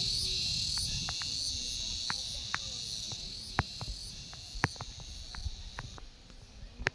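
Insects chirring steadily at a high pitch, fading out about six seconds in, over a low wind rumble. Scattered sharp clicks come through, the loudest near the end.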